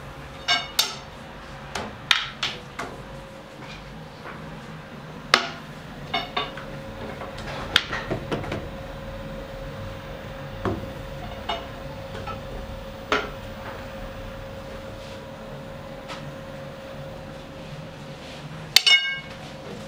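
Metal bakery utensils and trays clinking and knocking at irregular intervals, a dozen or more sharp strikes, some ringing briefly; the loudest ringing clink comes near the end. A steady hum runs underneath.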